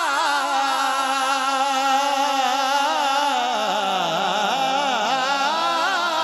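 A man singing a long, wordless melismatic line of a devotional Punjabi kalam, the held notes wavering with heavy vibrato. The line dips down in pitch around the middle, then climbs again.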